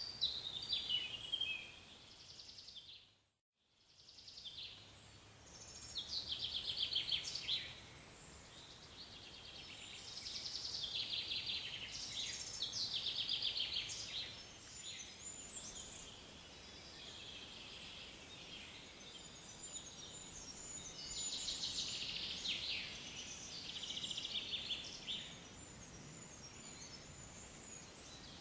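Several songbirds singing, with repeated phrases and fast trills, over a faint steady background hiss. The sound cuts out briefly about three seconds in, then the singing resumes.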